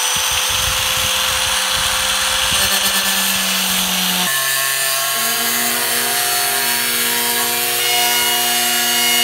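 An electric angle grinder running at full speed, its cut-off disc cutting through a thin aluminium sheet with a steady motor whine under a harsh grinding noise. About four seconds in, the sound changes abruptly to a steady ringing drone of several held pitches.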